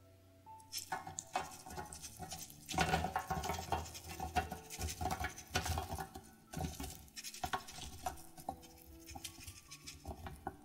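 Wet, freshly boiled potato strips tipped from a wire-mesh strainer onto a paper-towel-lined steel tray, landing in a quick patter of soft knocks and slaps. The patter is thickest in the middle and thins to scattered taps near the end.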